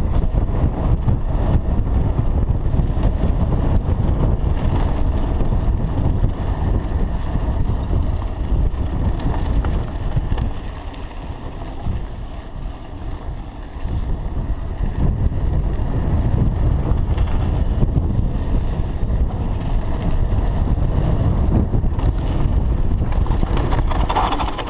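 Wind buffeting an action camera's microphone on a mountain bike running fast down a dry dirt trail, with the rumble of the tyres on the dirt. It eases for a few seconds about halfway through, then picks up again.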